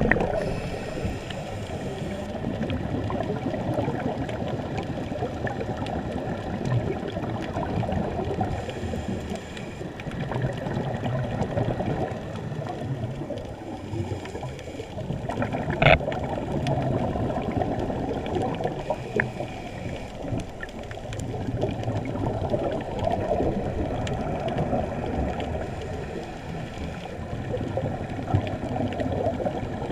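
Muffled underwater gurgling and rushing heard through a GoPro's waterproof housing, with a scuba diver's regulator bubbles swelling and easing every few seconds. A single sharp click comes about halfway through.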